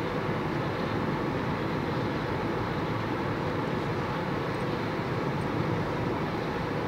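Steady road and tyre noise with engine hum inside a car's cabin, driving at highway speed.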